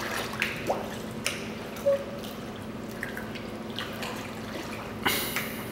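Pool water dripping and lapping, with the pool drain gurgling in irregular blops. A brief louder rush of water noise about five seconds in.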